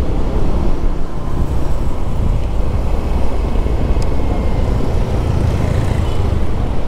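Steady wind rush on the camera microphone of a moving motor scooter, with the scooter's engine and passing traffic underneath.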